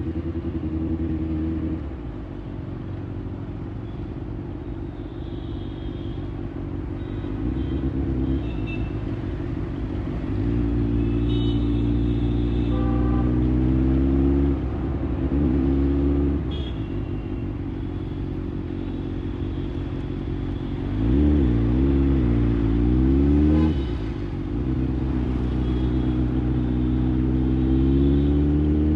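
Kawasaki ZX6R inline-four engine through an IXIL aftermarket exhaust, running on the move. The pitch holds steady for stretches, drops lower for a while early on, and wavers quickly up and down with throttle changes about two-thirds of the way through.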